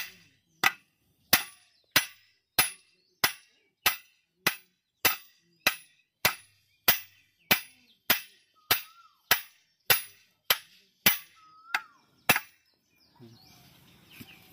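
Hammer blows on metal at the tension roller pulley of a Kubota harvester: about twenty sharp, ringing strikes at an even pace of roughly one and a half a second, stopping near the end.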